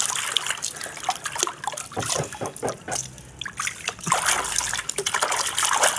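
Water trickling and splashing with small irregular taps and clicks as a muddy toy animal is washed clean.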